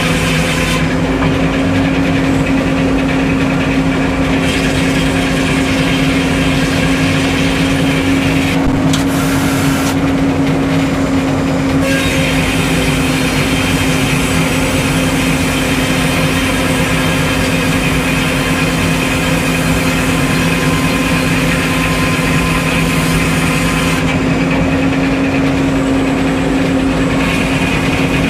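Sawmill engine running steadily at a constant pitch, with a hissing noise above it that drops away and returns several times.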